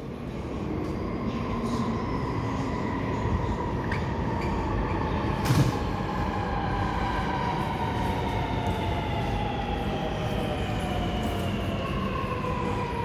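Sydney Metro Alstom Metropolis driverless train arriving at an underground platform: a steady rumble with a multi-tone motor whine that slowly falls in pitch as the train brakes. A single thump comes about five and a half seconds in.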